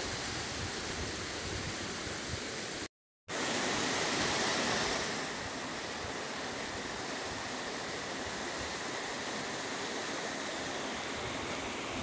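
Steady rushing of water tumbling down a narrow granite gorge. About three seconds in the sound drops out completely for a moment, then resumes a little louder before settling back to the same steady rush.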